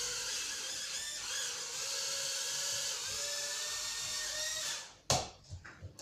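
Small four-propeller toy quadcopter (FX 32 mini drone) flying, its motors and propellers giving a high whine whose pitch wavers slightly. The whine cuts off just before five seconds in, followed by a sharp knock and a few light taps.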